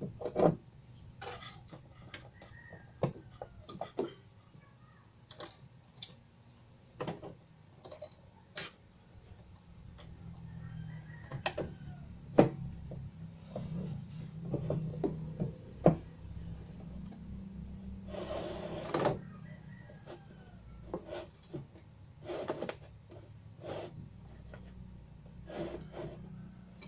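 Irregular clicks and knocks, with one longer scrape a little past halfway, as a CRT TV's circuit board is handled and seated back into its plastic chassis rails.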